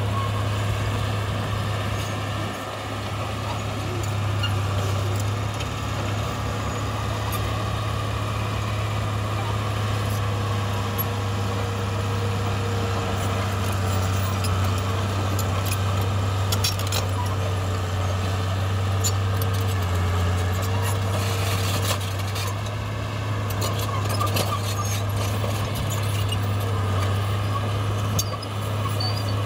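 A heavy diesel engine on earthmoving machinery running steadily at constant pitch, with scattered sharp clicks and clatter over it, most of them a little past the middle.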